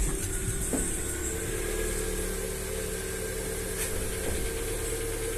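Lada Vesta SW Cross engine idling steadily seconds after a cold start.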